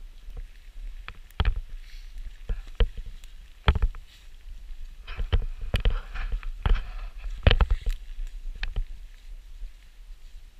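Footsteps tramping through moss and forest undergrowth, with brush rustling against clothing and several sharp cracks of twigs and branches, over a steady low rumble.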